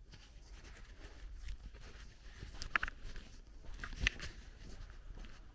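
Footsteps walking on a dirt road, with two sharper clicks about three and four seconds in.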